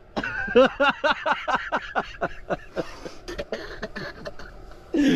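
A man laughing hard: a fast run of ha-ha bursts, then breathier laughter. It is giddy laughter from exhaustion.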